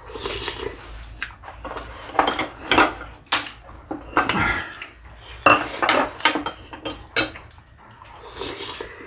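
Dishes and utensils clattering as they are handled, an irregular run of clinks and knocks with several louder strikes through the middle.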